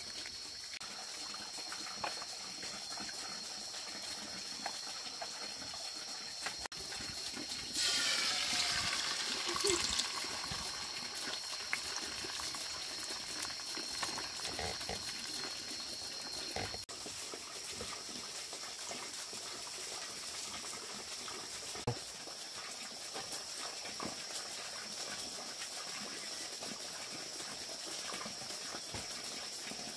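Beaten eggs hitting a hot oiled frying pan, a loud sizzle starting about eight seconds in, then frying more quietly over a wood fire. A steady high-pitched whine runs underneath.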